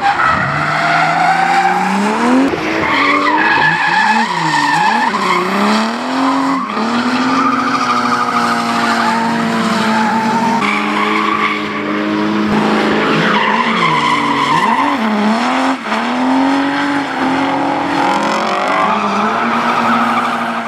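Old Mercedes-Benz saloon drifting: the engine revs drop and climb again several times between long stretches held high, over continuous tyre squeal.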